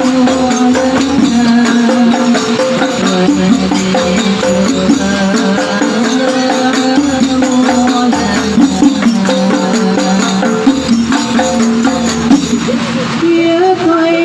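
Sholawat, an Islamic devotional song, sung with hand-percussion accompaniment: a steady stepping melody over quick jingling, tambourine-like beats.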